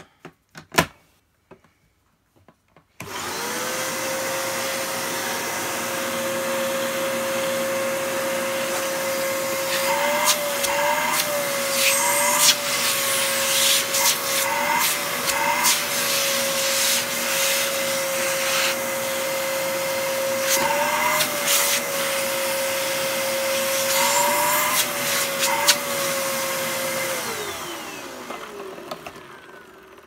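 Hoover PurePower Enigma bagless cylinder vacuum cleaner, after a single sharp click, starts up suddenly about three seconds in and runs steadily with a strong whine, on a test run after repair. Its pitch dips and wavers with some clattering twice along the way. Near the end it is switched off and winds down.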